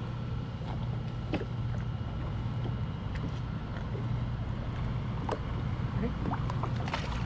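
Sea-Doo Fish Pro personal watercraft idling with a steady low hum, water lapping around the hull and a few faint clicks.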